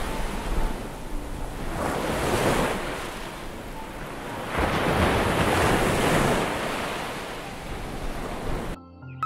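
Sea waves washing onto a sandy beach, swelling twice in a steady rush of surf with wind on the microphone, cutting off abruptly near the end.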